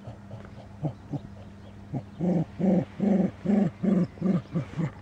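A cocker spaniel making a run of short, low-pitched vocal sounds, about two to three a second, starting a little under halfway in after one single sound about a second in.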